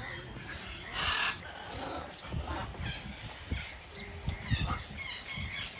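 Birds calling in many short, high chirps and squawks, with a quick run of repeated notes near the end, over low thumping in the background.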